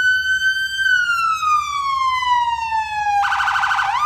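Electronic police siren from a toy police car, wailing. The tone holds high, then slowly falls, then breaks into a fast warble near the end before sweeping back up.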